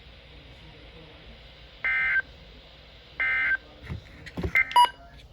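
Two short touch-tone (DTMF) bursts, each about a third of a second and about a second and a half apart, come over the faint hiss of a weather radio broadcast. A quick cluster of clicks and brief beeps follows near the end, typical of the station's automated switching between messages.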